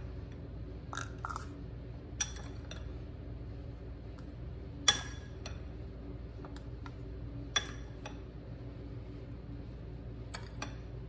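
A handful of light clinks of kitchenware being handled, the sharpest about five seconds in, over a steady low hum.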